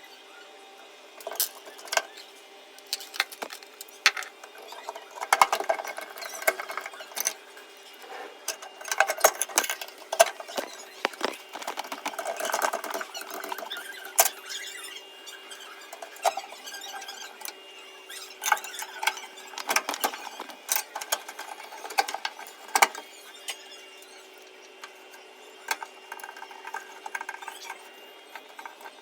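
Irregular clicks, knocks and scraping of tools and metal parts being handled as a microwave oven is opened up for repair, over a faint steady hum.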